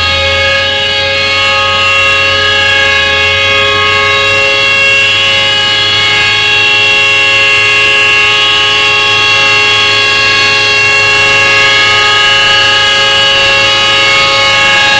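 Truck air horn held in one long, unbroken blast, several steady tones sounding together as a chord, over the low hum of the truck's engine.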